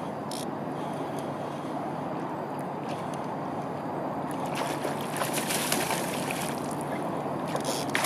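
Water splashing and sloshing as a hooked coho salmon thrashes at the surface beside a kayak. The splashing gets busier from about halfway and peaks near the end.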